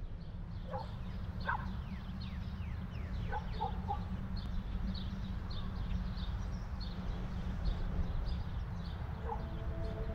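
Outdoor ambience: many short, high bird chirps and a few louder fowl-like calls over a steady low rumble of wind. A held chord of music begins about nine seconds in.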